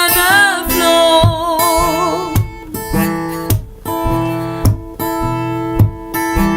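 Acoustic guitar music, strummed and plucked, with a voice singing long wavering notes over it for the first two seconds or so; after that the guitar carries on alone with held chords.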